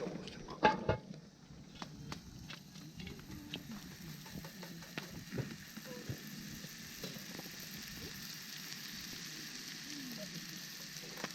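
Fire sizzling with a steady hiss and scattered crackles and pops, with one sharp knock a little under a second in.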